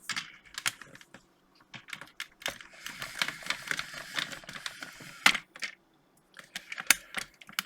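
Handling noise: irregular clicks and taps with a stretch of rustling in the middle, and a few sharper clicks near the end, as things are moved around inside an open PC case or the camera is repositioned close up.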